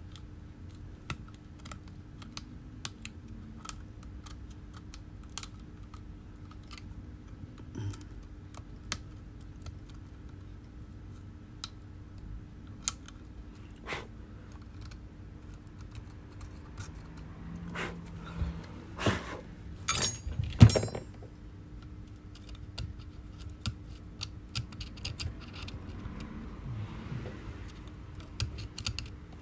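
A metal blade scraping and picking at leftover adhesive and broken glass on an iPhone 11's rear housing: irregular small clicks and ticks, with a louder run of scrapes and clicks about two-thirds of the way through.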